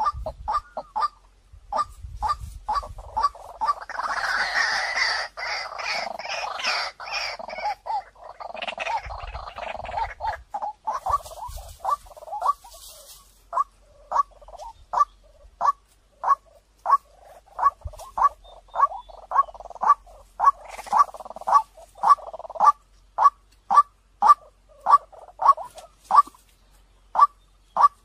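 White-breasted waterhen calling: a long run of short, sharp notes, about two a second. It breaks into a denser, harsher burst of calling from about 4 to 10 seconds in and again briefly around 21 seconds.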